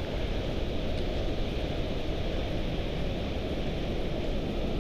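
Steady wind rumbling on the camera microphone, an even low noise with no breaks.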